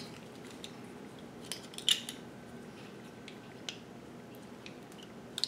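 Small plastic parts clicking and tapping as a baby gate's plastic base foot is handled and fitted onto the gate rail, with a few sharper clicks about two seconds in and near the end.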